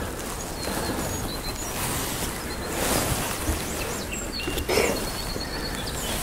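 Small birds chirping now and then over a steady low rumble of wind on the microphone, with a brief rustle of clothing or the rod being handled near the end.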